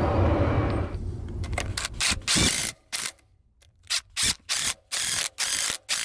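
A ratchet wrench clicking in about a dozen short strokes, with pauses between them, following a steady low rumble that stops about a second in.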